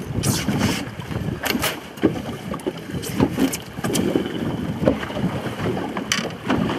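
Wind buffeting the microphone on an open boat, with scattered sharp knocks and taps as a catfish flops in a landing net on the deck and is handled.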